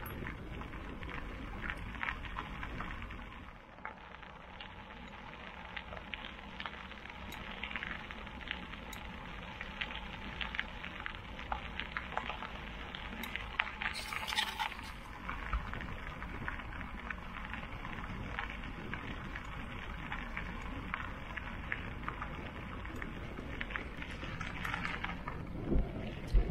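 Knobby mountain bike tyres rolling over a gravel forest track: a continuous gritty crackle of small stones with many little ticks, and one sharper knock near the end.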